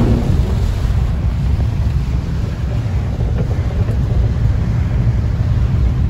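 Steady rumble and hiss of a vehicle driving through heavy rain on wet pavement, with low wind-like buffeting.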